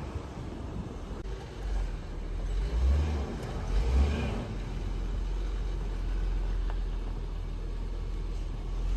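Low, steady rumble of a car in motion, with a couple of louder low swells about three and four seconds in.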